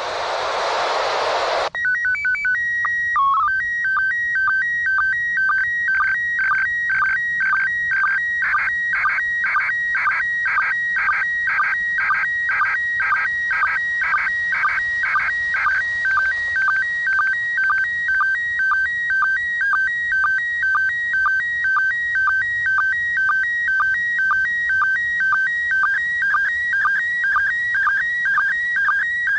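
Slow-scan TV (SSTV) picture signal from the International Space Station, received as FM audio and played through a Yaesu FT-60 handheld radio's speaker. About two seconds of radio hiss come first, then a steady calibration tone with a brief lower break that opens the image. After that a warbling pattern of scan tones repeats about twice a second as each line of the PD120-mode picture is sent.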